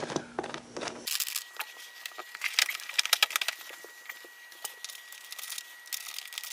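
Scattered light clicks and knocks of a motorcycle seat and its fittings being handled and fitted onto the bike, with a faint steady high whine in the background.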